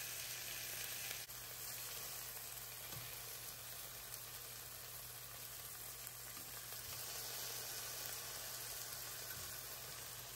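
Mahi mahi fillets with sliced bell pepper and red onion sizzling steadily in olive oil in a frying pan.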